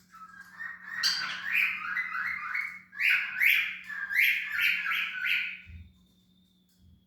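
Cockatiel calling: a rapid run of about a dozen short, harsh squawks, stopping about six seconds in.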